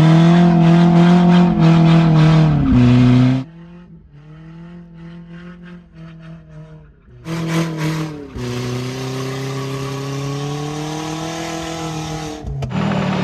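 Nissan Hardbody's KA24E 2.4-litre four-cylinder engine running at high, steady revs while the truck spins donuts. It is loud for the first three seconds, much fainter from about three and a half to seven seconds in, then loud again with a short dip in pitch about eight seconds in.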